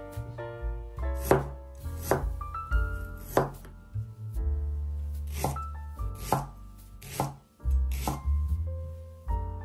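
A kitchen knife chopping on a cutting board: about seven separate strokes, roughly a second apart, over background music.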